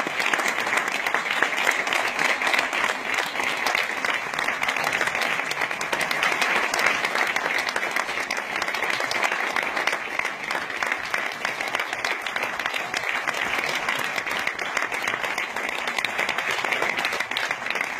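Audience clapping steadily: sustained applause from a crowd, many hands at once.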